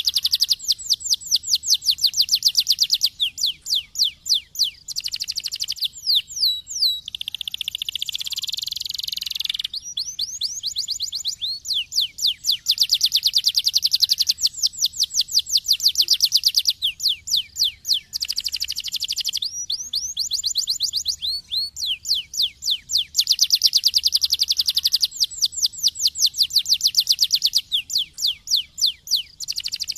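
Domestic canary singing continuously: long rolling trills of fast repeated notes, changing speed and pitch every second or two, with a harsher buzzing phrase about eight seconds in.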